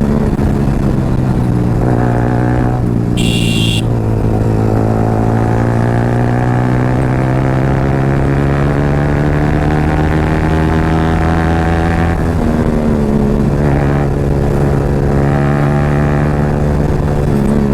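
Yamaha R15's single-cylinder engine through an Akrapovic exhaust, pulling hard on the move: the pitch climbs slowly for several seconds, drops about twelve seconds in, and drops again near the end. A brief high hiss comes about three seconds in.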